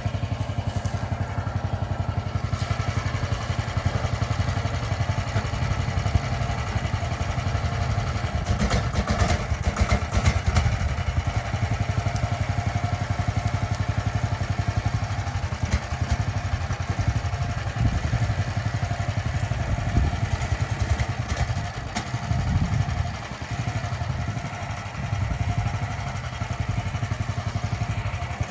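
Mini excavator's small engine running steadily as the tracked machine crawls down a steep slope, with a stretch of clattering about 8 to 10 seconds in and the engine sound dipping briefly about 23 seconds in.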